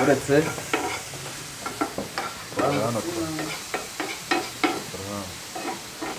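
Vegetables frying in a hot pan, stirred with a utensil that scrapes and knocks irregularly against the pan.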